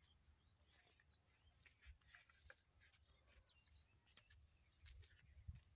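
Near silence outdoors: faint scattered clicks and low rumbles, with a few short, faint high chirps of birds.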